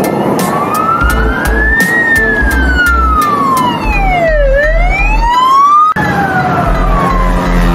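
Siren wailing in slow rising and falling sweeps over a low, regular beat. The wail breaks off abruptly about six seconds in and starts again on a falling sweep.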